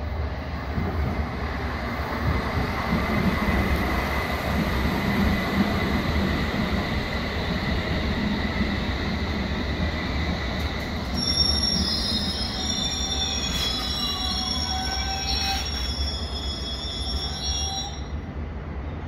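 London Underground S8-stock Metropolitan line train running into the platform and braking to a stop, with a steady low noise of wheels and motors. For the last several seconds a cluster of high-pitched brake and wheel squeals sounds, then cuts off near the end as the train comes to a stand.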